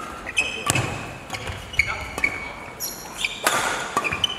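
Badminton doubles rally: rackets hitting the shuttlecock several times, with short high squeaks of players' shoes on the court floor in between.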